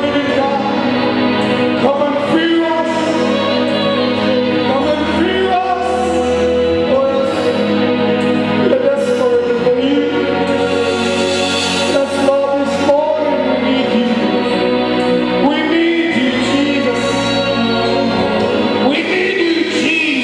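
Gospel worship music: singing with instrumental accompaniment, over a steady bass line that changes note every few seconds.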